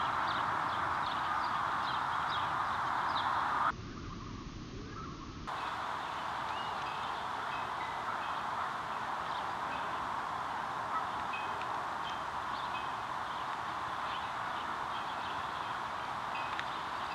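Small birds giving short, scattered high chirps over a steady rushing background of wind or distant surf. For under two seconds, about four seconds in, the background drops and the chirps fade.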